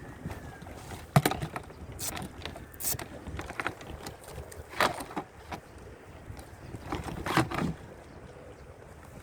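Scattered clicks, knocks and scrapes of a Mycanoe Pop folding canoe's plastic hull and fittings being handled and unclipped as it is taken apart. The sharpest knock comes about a second in, with further clatters spread through the rest.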